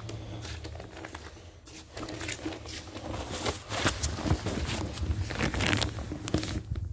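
Handling noise: a phone's microphone rubbing and knocking against cloth, irregular rustles and scuffs that pick up about two seconds in.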